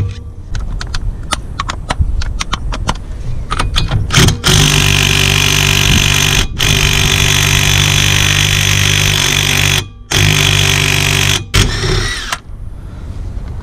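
Cordless impact wrench hammering on a Peugeot 206's 32 mm rear hub nut to undo it. It runs for about eight seconds in long bursts with a few short breaks, then stops. A few sharp taps come before it starts.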